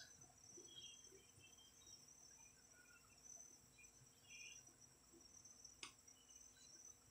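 Near silence with faint, steady, high insect trilling, a few scattered faint chirps, and one sharp click about six seconds in.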